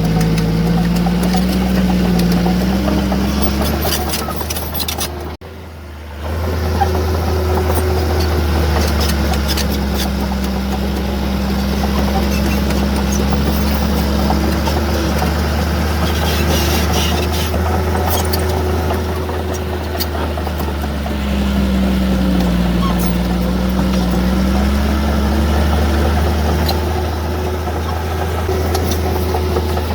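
Heavy earthmoving machine's diesel engine running under load, its pitch sagging and recovering several times as it works. The sound briefly drops out about five seconds in, then the engine carries on.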